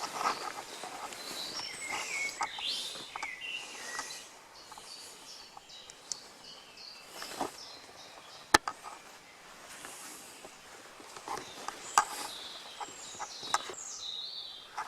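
Woodland birds calling and singing in the early-morning dawn chorus, in short high-pitched phrases that come in two busy spells, at the start and again near the end. Scattered sharp clicks and light rustles sound between them, with one crisp click about halfway through.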